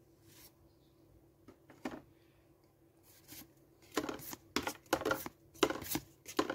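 Pokémon trading cards being slid off one another one at a time by hand. Short papery swishes, a few scattered ones at first, then several in quick succession over the last few seconds.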